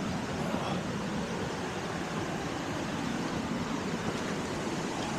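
Steady, unbroken rush of pouring rain falling through the woods.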